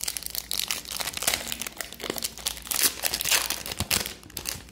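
Plastic wrapper of an Upper Deck hockey card pack crinkling as it is handled and torn open, a dense run of irregular crackles.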